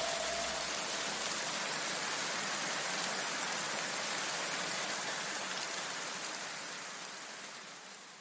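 A steady rain-like hiss left in the soundtrack after the electronic music cuts off, slowly fading out near the end.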